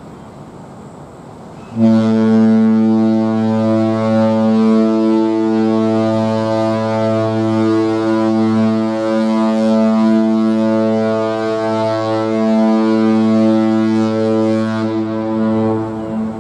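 Cruise ship Sea Princess's horn sounding one long, deep blast, starting about two seconds in and stopping shortly before the end.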